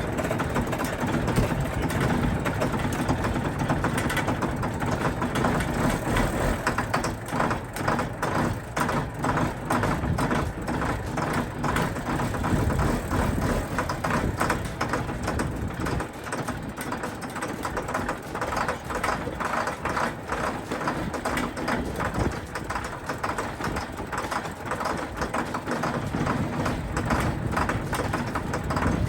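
John Deere 4850's six-cylinder turbo diesel running on a cold start after months of sitting, with an uneven, pulsing idle. The low rumble eases back about halfway through.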